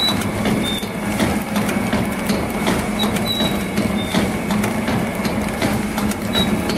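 DXDJ-40II automatic sauce sachet packing machine running: a steady motor hum under rapid, continuous mechanical clicking and clatter as its sealing rollers turn and draw the sachet strip through.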